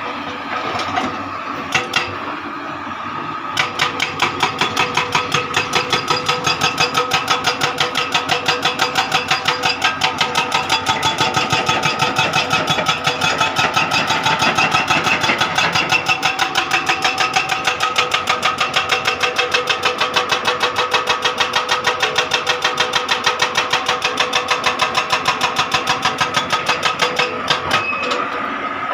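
Hydraulic excavator running, with a fast, steady mechanical clatter of several strokes a second that sets in a few seconds in and keeps an even rhythm.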